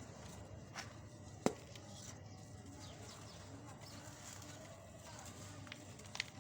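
Hard pieces of pure cement being crunched and crumbled, with a few sharp cracks. The loudest crack comes about a second and a half in, and a smaller pair comes near the end.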